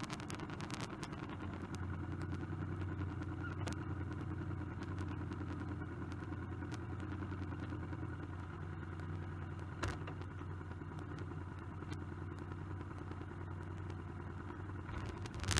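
Motorcycle engine idling steadily, with a fast even pulse and a low hum, and two brief clicks about four and ten seconds in.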